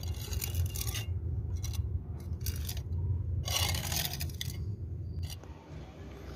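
A metal scraper blade scraping over fresh black sealant and concrete in several irregular strokes, the longest about three and a half seconds in, as the sealant is pressed firmly into a crack. A steady low rumble runs underneath.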